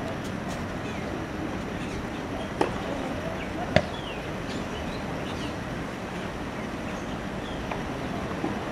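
Two sharp tennis ball hits a little over a second apart, the second the louder, over a steady outdoor background hiss.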